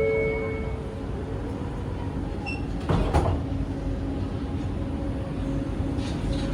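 Cabin sound of a Bombardier Innovia ART 200 metro car. Electronic chime tones end within the first second over a low steady rumble. About three seconds in there is one sudden thud, likely the sliding doors shutting, followed by a steady hum from the train.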